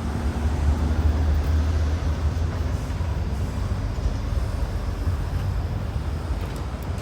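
Steady low engine rumble, like a vehicle running.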